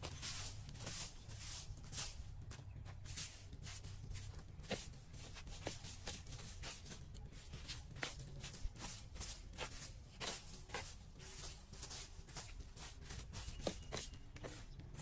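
Plastic-bristled push broom sweeping sand and grit across paving stones, a run of short, irregular scraping strokes.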